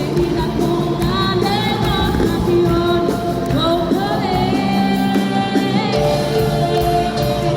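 Worship band music with a voice singing over it, the sung notes held and sliding between pitches.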